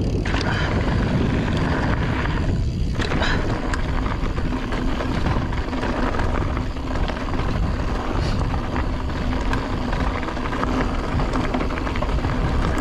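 Mountain bike riding fast over a rocky dirt trail: a steady rush of wind on the microphone and tyre rumble on gravel, with scattered clicks and rattles from stones and the bike.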